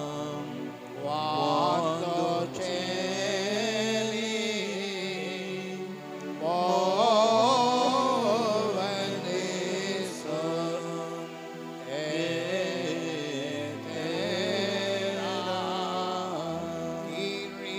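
Slow devotional hymn sung in long phrases with a wavering melody, over a steady held tone beneath.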